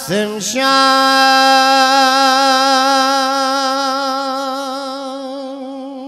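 A man chanting a Persian (Dari) manqabat, a devotional praise poem, holds one long note at a steady pitch after a short syllable, slowly fading as it goes.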